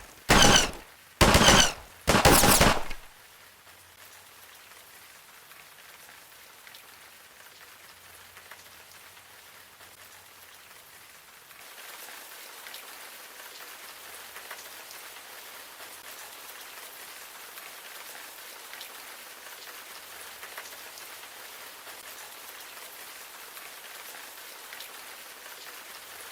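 Three loud, harsh bursts of noise in quick succession, then a steady hiss that grows louder about twelve seconds in.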